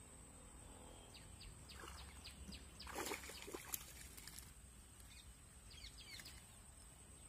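A faint splash as a hand-thrown fishing line and bait land in a pond, about three seconds in. Soft bird chirps come before and after it.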